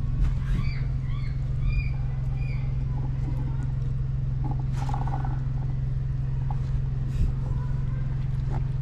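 A steady low mechanical hum, like an idling engine, runs throughout, with about six short high chirps in the first three seconds.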